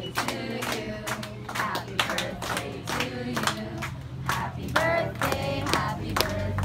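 People singing together while clapping in a steady rhythm, about three claps a second, with background music underneath.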